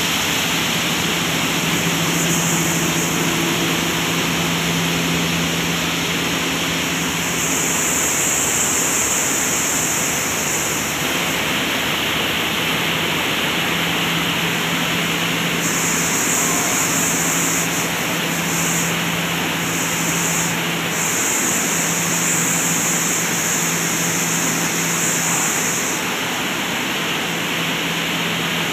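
Grain cleaning and grading machine running: a steady motor hum under a loud, even rushing noise.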